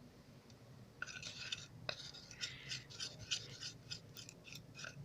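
Homemade slime of glue, powder and soap being stirred in a container, a quick irregular run of faint scraping, squelching strokes starting about a second in; the mixture is still sticky.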